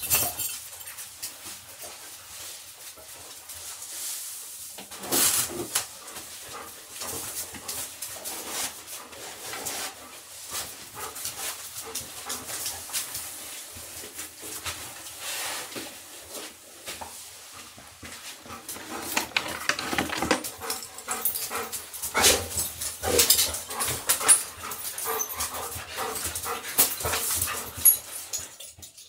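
Two excited dogs, a Labradoodle and a Golden Retriever, whimpering and panting while a collar and lead are put on them, with many small clicks and rustles from the collar, tag and lead. The handling gets louder and busier in the second half.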